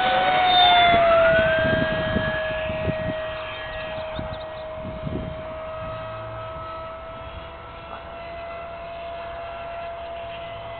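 Electric ducted-fan jet (JS1400 fan on a 4S pack) whining as it flies past. The pitch drops about a second in as it passes, then the whine fades steadily as the jet flies away.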